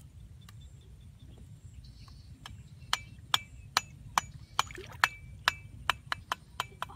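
A series of about a dozen sharp clicks or taps starting about three seconds in, roughly two to three a second and coming a little faster near the end.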